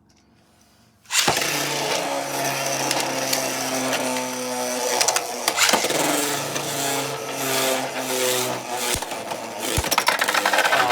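Two Beyblade spinning tops ripped from their launchers about a second in, then spinning and clashing in a plastic stadium: a steady whirring hum with repeated sharp clacks as the tops strike each other.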